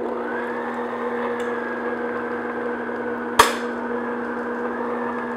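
Stand mixer motor running steadily at low speed, its flat beater working flour and dried fruit into butter for a cookie dough. A single sharp knock sounds about three and a half seconds in.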